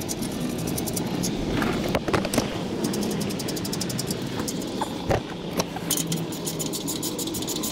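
Metal clinks and knocks as hands and a wrench work the bolted exhaust-pipe flange of the catalytic converter, with sharp knocks about two seconds in and again about five seconds in, and rapid fine clicking near the end. Under it runs a steady low motor hum.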